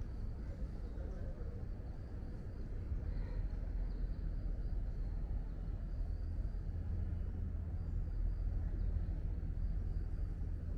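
Outdoor urban ambience: a steady low rumble that grows slightly louder a few seconds in, with a faint thin high hum above it.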